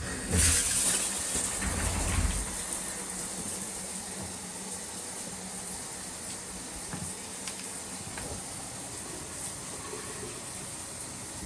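Samsung VRTplus washing machine filling with water: a steady rushing hiss of incoming water that starts right away, louder for the first couple of seconds, then settles.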